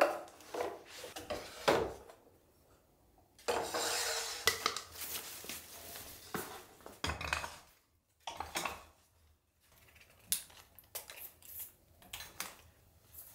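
Clattering knocks of small hard objects, a spray bottle and tools, being set into a wooden crate, with the sharpest clunks at the start and under two seconds in. A rustling shuffle follows, then a few scattered light knocks.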